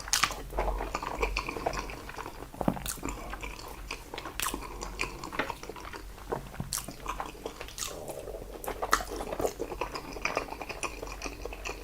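A person chewing salted seafood (jeotgal) close to the microphone: wet mouth sounds with irregular sharp clicks and smacks.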